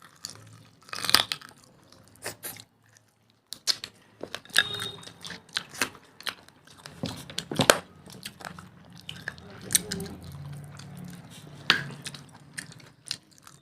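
Close-up chewing and biting while eating mutton curry and rice: irregular wet mouth smacks and small sharp clicks.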